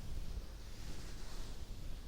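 Soft rustling of a plush teddy bear handled close to the microphone, with a low rumble of handling noise; the rustle swells about a second in.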